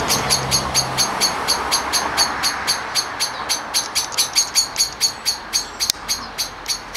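Cicada singing in the trees: a steady run of sharp, evenly spaced pulses, about five a second, over a faint background hiss.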